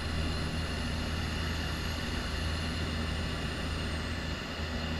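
Steady drone of a tow plane's propeller engine heard from inside a glider's cockpit during an aerotow climb, over the rush of air across the canopy. A faint high whistle fades out about four seconds in.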